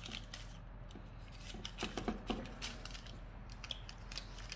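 Faint, irregular light clicks and rustles of hands and a small tool working soft cookie dough on a parchment-lined baking tray.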